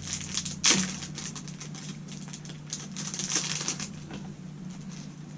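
Packaging rustling and crinkling with small clicks and taps as an item is handled and unwrapped. The loudest rustle comes under a second in and another cluster about three seconds in, over a faint steady hum.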